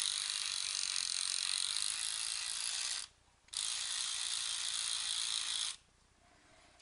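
LEGO Technic electric motor running, driving a worm screw into a 24-tooth gear on the locomotive's drive, with a steady gear whir. It runs for about three seconds, stops for half a second, then runs again for a little over two seconds and stops.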